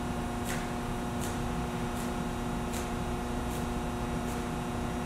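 Steady low room hum with a few fixed tones. Over it is a faint short swish about every three-quarters of a second, in time with a person doing push-ups on foam mats.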